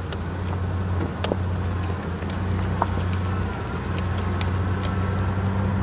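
A motor vehicle's engine running steadily, a low even hum, with a few light clicks over it.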